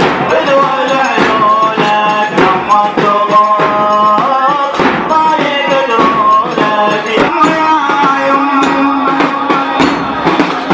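Male reciter chanting a Muharram mourning elegy (latmiya) in long, ornamented sung lines over a steady percussive beat.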